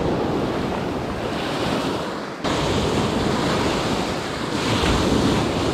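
Ocean surf breaking and washing up the sand at the waterline: a steady rush of foaming water that swells about five seconds in, with wind rumbling on the microphone.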